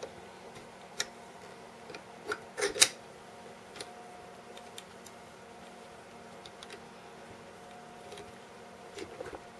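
Scattered clicks and knocks of hands handling a small bench vise clamping a plastic USB power adapter, the loudest cluster about three seconds in and a few more near the end. A faint steady hum runs underneath.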